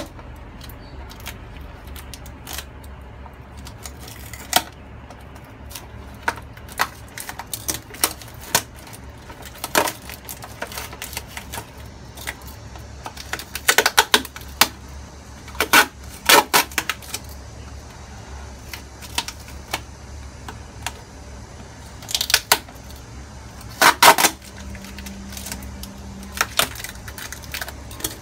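Irregular sharp clicks and taps of a small knife and hands on a clear plastic tub, some coming in quick clusters, over a steady low hum.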